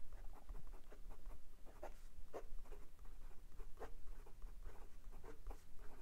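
Fountain pen with a number 6 medium steel nib writing on 90 gsm paper: faint nib-on-paper scratching in many short, irregular strokes as letters and numbers are formed. The nib is a smooth, wet writer.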